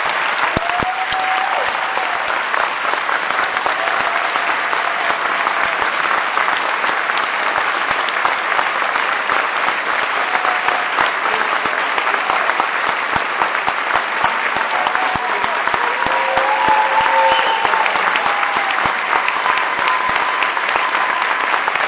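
A large audience applauding steadily and at length, with a few cheers over the clapping.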